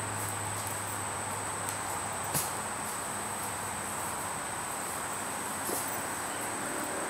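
Insects trilling steadily in the woods, one unbroken high-pitched tone, with a couple of sharp clicks about two and a half and six seconds in.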